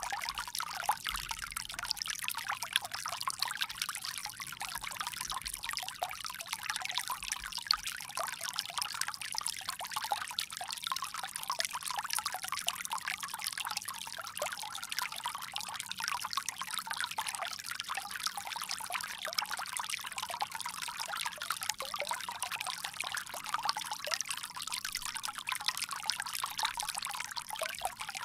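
Water pouring steadily from a bamboo spout, a continuous bright splashing trickle.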